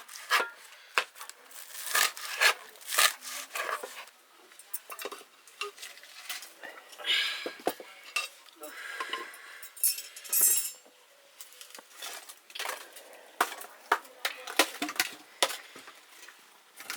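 Kitchen utensils clinking and knocking against pots and dishes at irregular intervals, with a few brief scraping sounds.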